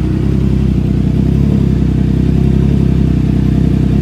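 Triumph Trident 660's three-cylinder engine idling steadily on a cold start, through an aftermarket full exhaust system with an added resonator, giving a deep exhaust note.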